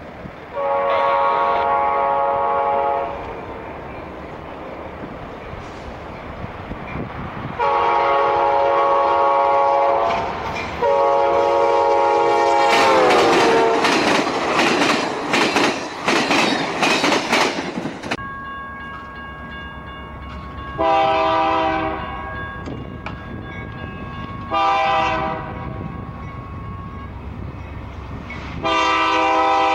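Passenger train's multi-chime air horn sounds three long blasts as it approaches, the last one dropping in pitch as the train passes. The rumble and wheel clatter of the passing cars follow. Then a BNSF freight locomotive's horn sounds two short blasts and a long one.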